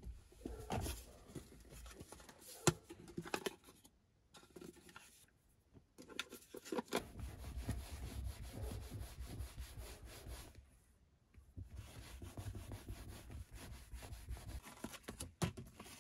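Paper towel rubbing back and forth over a perforated leather car seat as it is wiped clean, in two long spells. A few sharp clicks and taps come in the first few seconds.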